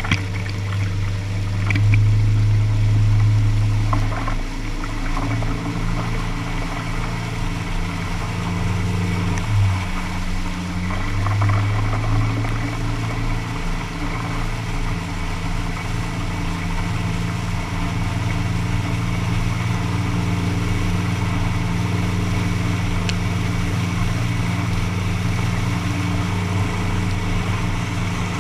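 Boat engine running steadily at speed, with water rushing and spraying along an aluminium hull. The engine note dips briefly about ten seconds in and comes back up.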